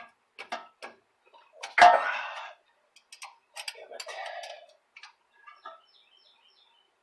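Hand wrench working the drive shaft's U-joint strap bolts under a Jeep: irregular metallic clicks and scrapes, with one loud ringing clink about two seconds in.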